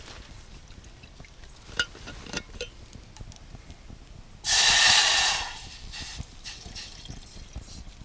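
Water poured from a stainless steel bottle into a metal cooking pot on a twig stove: a loud rush of water that starts about four and a half seconds in and fades within about a second, then thins to a quieter trickle. A couple of light knocks come before it.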